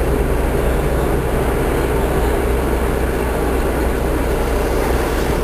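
Steady rumble and rattle of a moving vintage passenger rail coach, heard from inside the car as it rolls along the track.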